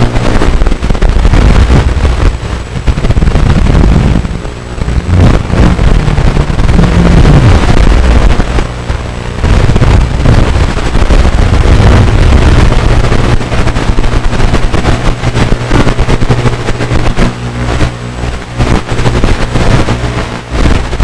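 Onboard sound of a radio-controlled model car driving across a hard hall floor: a loud, crackling low rumble of its motor, drivetrain and wheels picked up through the chassis, easing off briefly about four seconds in and again around nine and eighteen seconds.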